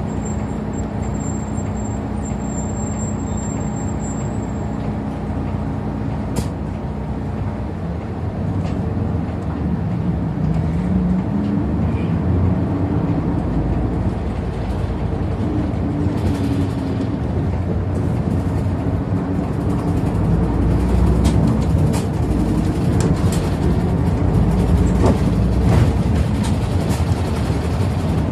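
City bus engine and road noise heard from inside the passenger cabin, running steadily at first, then from about eight seconds in the engine note rises again and again and grows louder as the bus gathers speed, with a few sharp clicks and rattles.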